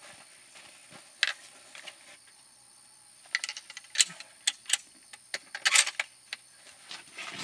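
Metallic clicks and clacks of a bolt-action rifle being reloaded: the bolt worked and a fresh cartridge chambered. The clicks come irregularly in small bunches, one about a second in, a run between three and five seconds, and more near six seconds and at the end.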